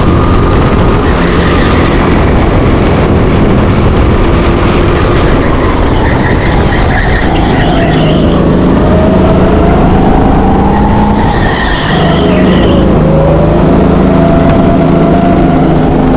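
Go-kart engine running hard, heard onboard: its pitch dips twice, about halfway and about three quarters through, as the driver slows for corners, and climbs again on the throttle each time. Tyres squeal briefly through each of those corners.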